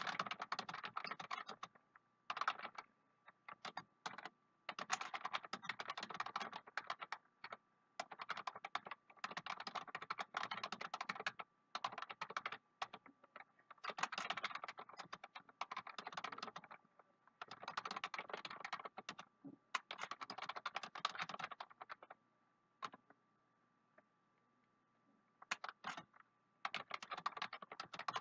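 Typing on a computer keyboard: quick runs of key clicks lasting a second or two, with short pauses between them and a longer pause of a few seconds near the end.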